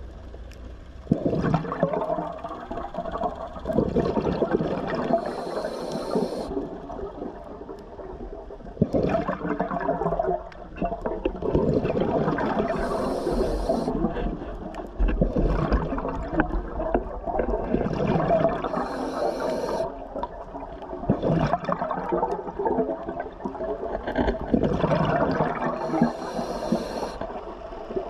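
Scuba diver breathing through a regulator underwater: long bubbling exhalations, each followed by a short hiss of inhalation, four breaths about seven seconds apart.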